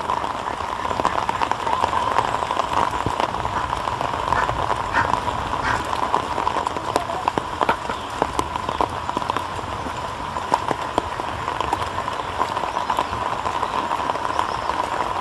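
Steady rain falling on wet ground and puddles, with many scattered sharp drips and taps.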